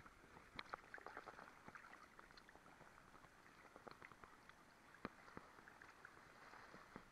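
Faint lake water lapping and gurgling at a camera held at the waterline, with scattered small clicks.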